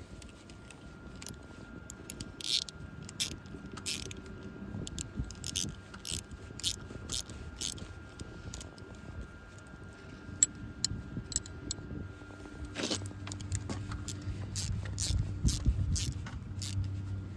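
Metal hardware clinking and scraping, with scattered sharp clicks that grow busier in the second half, as a wrench is worked on the nuts and wire of a gate's turnbuckle brace.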